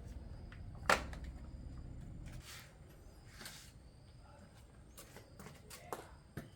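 Scattered light clicks and knocks, with one sharp knock about a second in and two smaller ones near the end, over a faint low hum.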